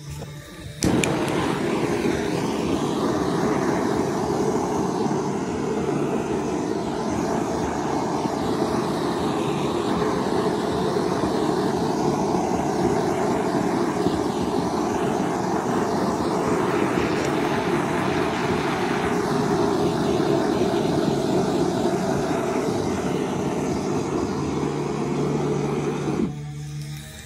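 Hand-held propane torch burning with a steady rushing flame noise. It starts under a second in and cuts off about a second before the end.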